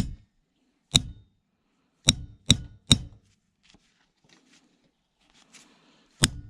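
Six sharp knocks of a tool striking a relay's clear plastic housing to break it off, three of them in quick succession about two seconds in.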